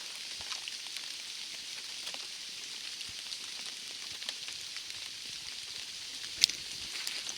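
Steady hiss of falling rain with scattered drop ticks, and one sharp click about six and a half seconds in.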